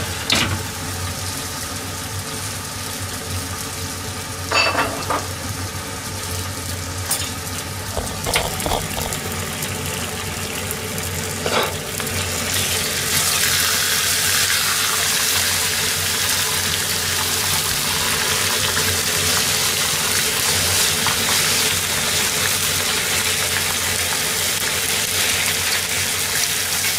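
Sliced pork and kimchi frying in a skillet with a steady sizzle. About halfway through, the sizzle grows louder and brighter. A few light knocks of kitchenware come earlier.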